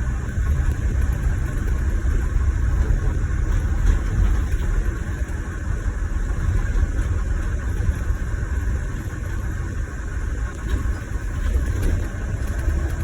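Scania Irizar i6 coach heard from inside the cabin: a steady low engine and road rumble.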